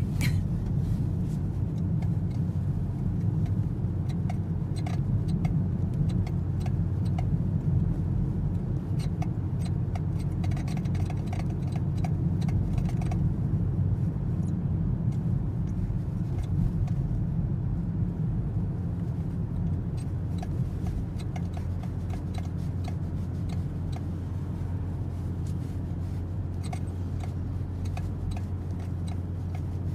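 Inside a Toyota C-HR: a steady low road and engine rumble, with short, faint squeaks coming and going from the steering, an abnormal squeak noise in the steering.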